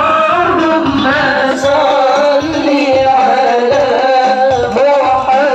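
Sholawat, an Islamic devotional song: a woman's voice sings a winding, melismatic melody through a loudspeaker over repeated hand-drum beats.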